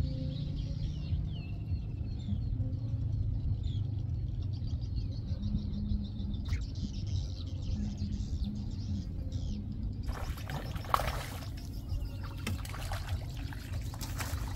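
Small birds chirping over a low steady rumble. About ten seconds in, a rough splashing noise begins and carries on to the end: a hooked fish thrashing at the surface as it is brought to the net.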